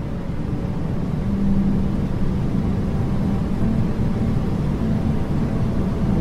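Rocket launch roar: a dense, steady low rumble that grows louder about a second and a half in.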